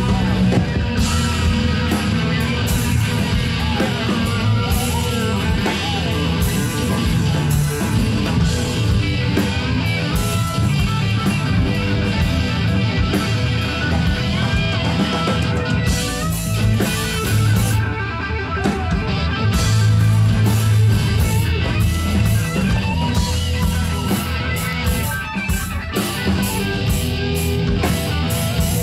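Live rock band playing an electric guitar lead over bass and drums, the guitar bending notes up and down, with no singing.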